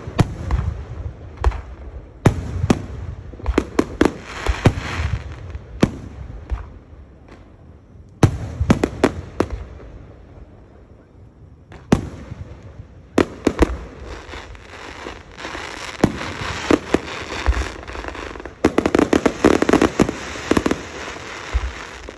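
A fireworks display: a run of sharp bangs and dense crackling salvos, with a brief lull about halfway through before the bursts build up again.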